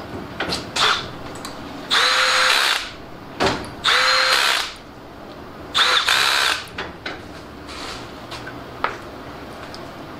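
Power driver spinning in the bolts of a 3-bolt camshaft timing gear: three short bursts about two seconds apart, with small clicks from handling in between.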